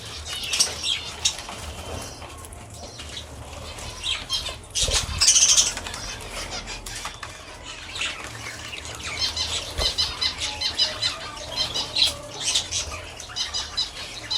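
Pet budgies chirping in quick high bursts, mixed with wing flaps and rustling; the chirping grows busier in the second half.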